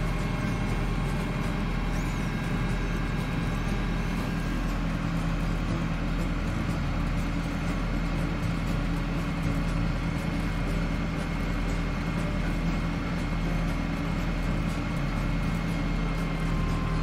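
New Holland TS tractor's diesel engine running steadily at about 1200 rpm, heard from inside the cab, while the Electro Shift gearbox goes through its calibration routine.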